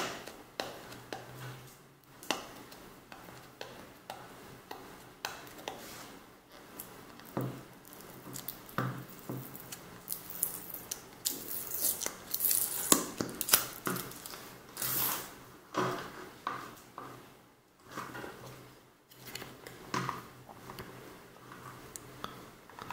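Hands working a small clear plastic packaging box: a fingernail picking at its sticker seal, with irregular scratches, rubbing and clicks of hard plastic as the lid is worked open.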